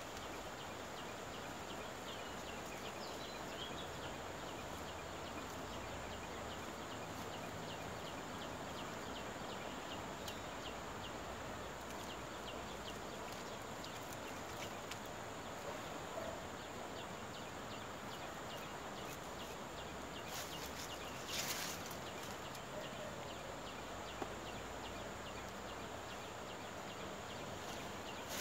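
Quiet outdoor riverside ambience: a steady hiss, with faint, evenly spaced ticking through the first half and a brief rustling noise about two-thirds of the way in.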